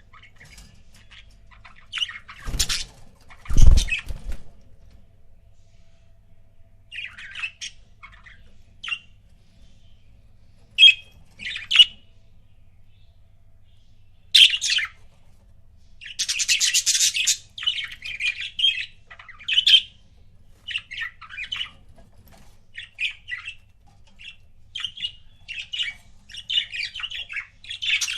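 Pet budgerigars chirping and chattering in short bursts, with a longer run of dense squawky chatter a little past halfway and quicker chirping near the end. Two low thumps about three seconds in are the loudest sounds.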